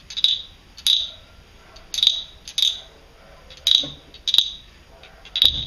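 Imitated frog croaks: short rasping croaks in pairs, one answering the other, repeated four times as two frogs calling back and forth.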